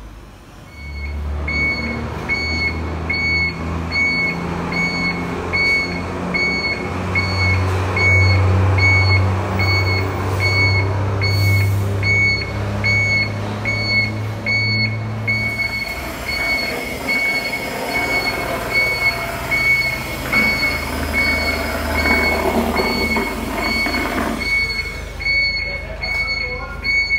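Tractor diesel engine starting about a second in and running, revved higher for several seconds in the middle. Over it, an electronic warning beep repeats steadily about one and a half times a second.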